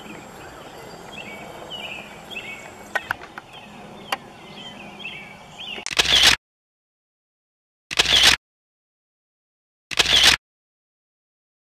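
Songbirds chirping over steady outdoor background noise, with two sharp clicks around three and four seconds in. About six seconds in, the sound cuts to dead silence, broken by three short camera-shutter sound effects about two seconds apart.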